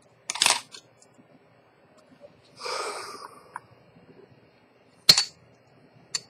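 Small sharp clicks and taps of watchmaker's tools (steel tweezers and a wooden stick) being handled at the bench: one about half a second in, then two near the end, the first of these the loudest. A short breathy rush of noise comes about halfway.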